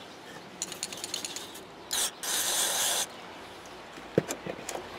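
Aerosol contact cleaner sprayed in two hissing bursts about two seconds in, a short one then one of nearly a second, cleaning the plow light module's connector sockets. Light handling clicks come before it and a sharp knock near the end.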